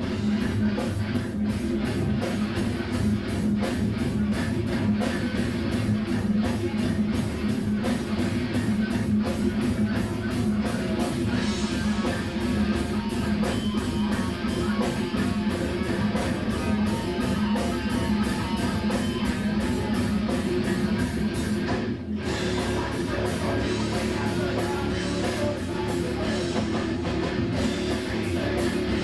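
Live rock band playing: electric guitars, bass and drum kit in a fast, steady beat, with a momentary break about two-thirds of the way through.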